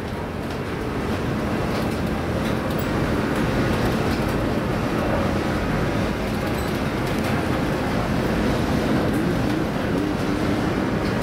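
Steady, loud roar of hurricane-force wind and heavy sea heard from inside a ship's wheelhouse, over a low rumble, with scattered light ticks and rattles.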